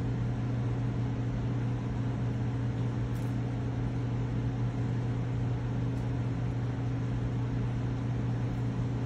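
Steady machine hum: a low, even drone with several evenly spaced overtones above it, unchanging throughout.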